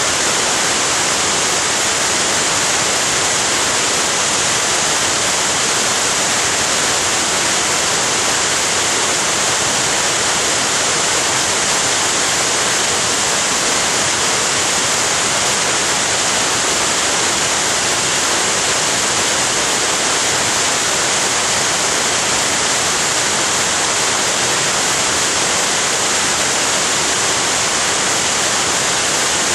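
Waterfall rushing in a loud, steady, unbroken hiss of falling water.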